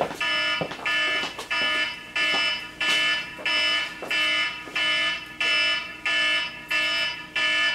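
Kitchen timer beeping repeatedly, about ten even, identical electronic beeps roughly three-quarters of a second apart, signalling that the muffins' baking time is up.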